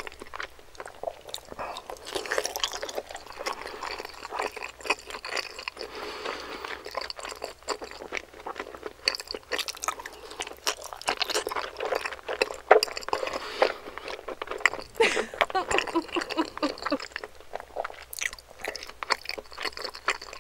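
Close-miked chewing of dumplings, a continuous run of quick wet mouth clicks and smacks. A short voiced hum comes in about two-thirds of the way through.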